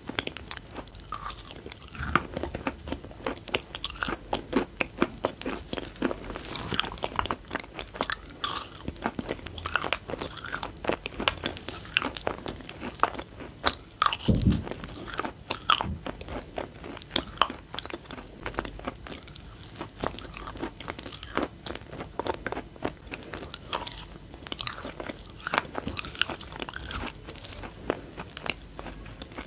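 Close-miked crunching and chewing of chalk and clay-chalk pieces in the mouth: a dense stream of small crackles and crunches, with one heavier thump about halfway through.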